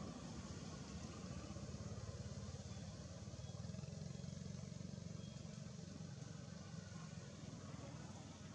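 Low, steady rumble of a distant motor engine, a little louder in the middle and easing off near the end.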